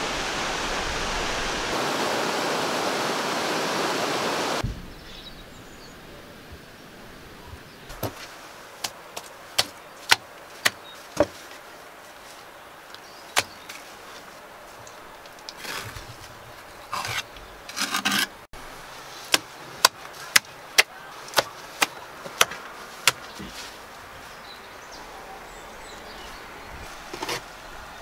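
Bricklaying with a trowel: sharp clicks as the trowel taps bricks down into wet mortar, and short rough scrapes of the trowel spreading mortar, most of all about 16 to 18 seconds in. For the first few seconds a steady rushing noise is heard; it cuts off suddenly.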